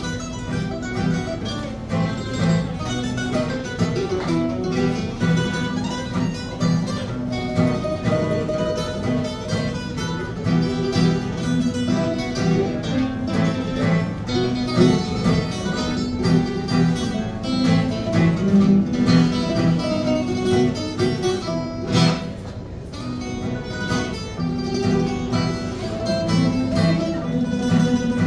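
Live acoustic string trio of two acoustic guitars and a mandolin playing a traditional Italian tune: guitars strumming a steady rhythm under picked mandolin and guitar melody lines.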